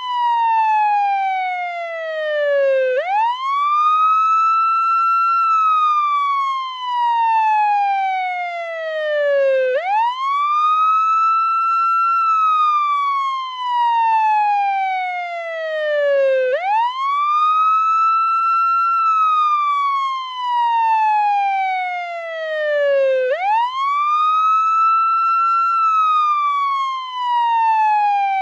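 Portuguese ambulance siren on its wail setting: a single tone that sweeps up quickly, holds briefly, then falls slowly, the cycle repeating about every seven seconds, four times here.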